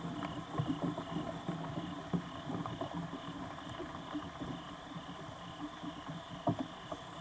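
Rain dripping in woodland: a steady wet hiss with irregular light taps of drops, one slightly louder tap near the end, over a faint steady high hum.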